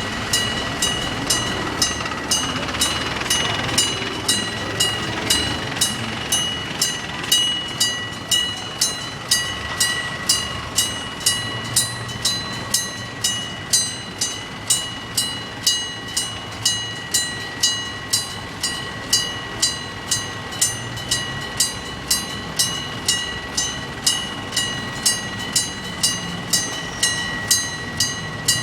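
Electric bell of a Japanese railway level crossing (the old denrei type) ringing in a steady, even rhythm of about two bright clanging strikes a second: the crossing warning is active, signalling an approaching train.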